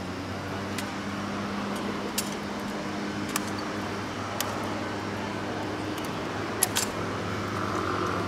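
Ceremonial rifle handled in an honor-guard drill: about six short, sharp clicks and clacks at uneven intervals. A steady low hum runs under them.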